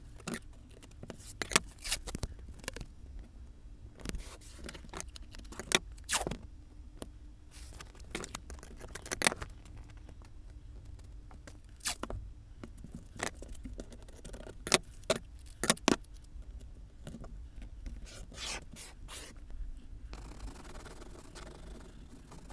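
Masking tape being pulled off the roll, torn and pressed down along the edges of a board: irregular sharp rips and scrapes. Near the end, an oil pastel starts scratching steadily along the taped border.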